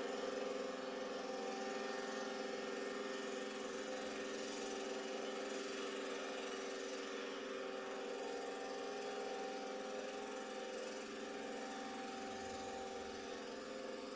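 Steady drone of an engine running at a distance, with a higher tone that fades in and out a few times, over tape hiss, heard through a television's speaker.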